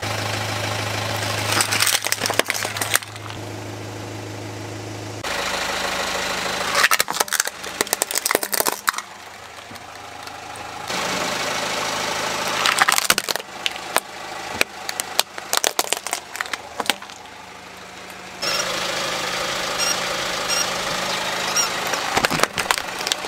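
A car tyre rolling over hard plastic toys, cracking and snapping them in about four separate bursts of sharp cracks, over the steady hum of the idling car engine.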